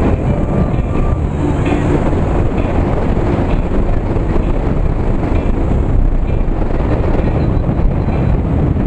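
Motorcycle cruising along a road: a steady rush of wind on the microphone mixed with engine and tyre noise.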